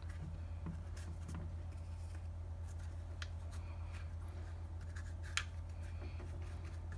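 Small paintbrush dabbing and rubbing acetone onto the plastic of a tailgate handle trim around freshly fitted replacement clips, giving scattered light clicks and scratches over a steady low hum.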